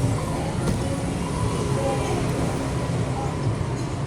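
Steady motor-vehicle engine and road rumble, even throughout.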